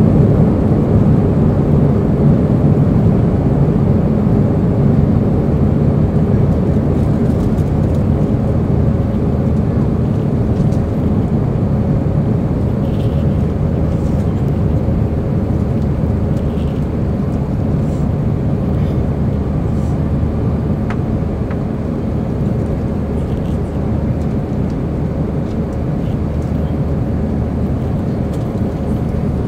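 Airbus A320 jet engines and rushing air heard from inside the passenger cabin during the climb after takeoff: a loud, steady low rumble with a faint steady hum, slowly easing in loudness.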